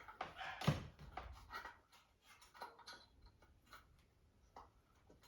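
Scattered light clicks and brief rustling from handling small light bulbs and their packaging, with one sharper knock a little under a second in.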